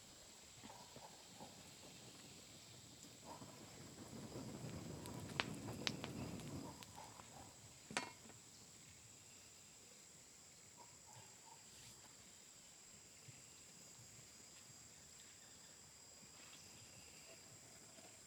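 Faint, steady high-pitched drone of crickets. From about four to seven seconds in come a few seconds of rustling with sharp clicks, and a single sharp snap about eight seconds in.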